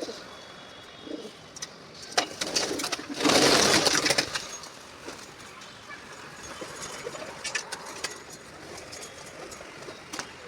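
Pigeons cooing softly, with scattered light clicks and a loud rushing burst of noise about three seconds in that lasts about a second.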